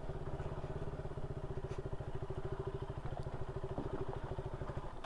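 KTM Duke 200's single-cylinder four-stroke engine idling steadily, with an even, rapid pulse, then cut off abruptly near the end.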